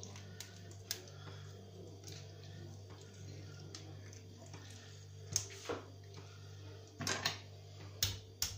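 Knife and gloved hands working a carp on a stone countertop: scattered light clicks and taps, then a handful of sharper knocks of the blade on the stone from about five seconds in. A steady low hum runs underneath.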